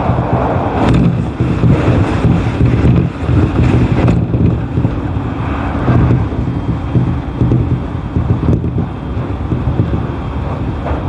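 E531 series electric commuter train running, heard from inside the car: a steady low rumble and rushing noise, with a few brief knocks.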